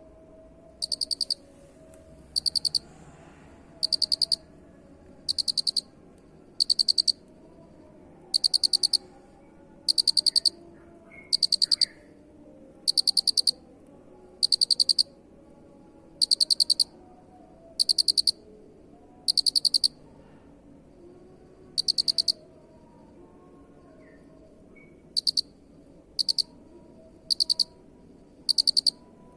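Cricket chirping: short, high, pulsed chirps of about half a second each, repeating every second and a half or so. There is a longer pause about two-thirds of the way through, and the chirps after it are shorter.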